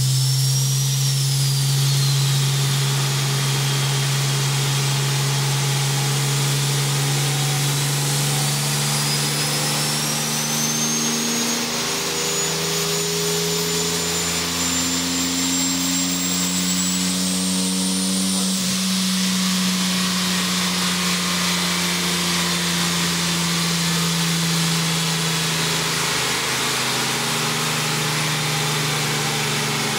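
Turbocharged Nissan Z31's engine running on a chassis dyno, held at steady speeds: the hum steps up in pitch about twelve seconds in and settles back near the end. A thin high whine climbs over it and drops away suddenly about eighteen seconds in.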